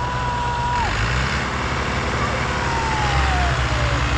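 Tractor diesel engines running hard under load. A high whining tone holds steady and then cuts off within the first second, and a second high tone slides slowly down in pitch later on.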